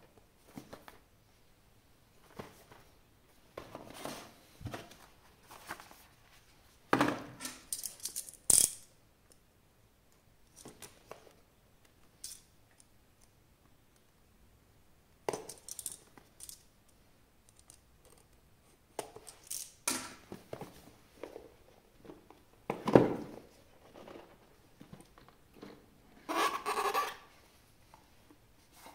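Box and packaging of an action figure being handled and opened: scattered taps, clicks and brief rustles of cardboard and plastic, with quiet pauses in between.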